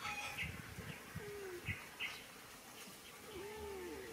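Background birds: a few short high chirps and two low calls that slide in pitch, with soft low knocks in the first two seconds.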